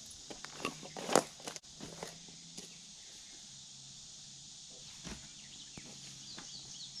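Footsteps and a few scattered knocks on the ground, the loudest about a second in, then a steady faint outdoor background. Birds chirp near the end.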